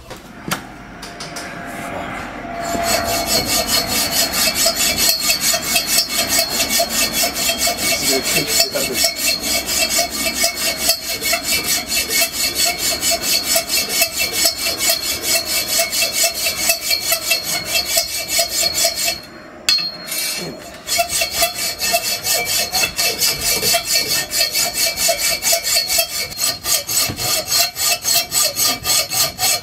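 Hand hacksaw cutting through a railing in fast, steady back-and-forth strokes, about two to three a second. It stops briefly about two-thirds of the way through, then starts again.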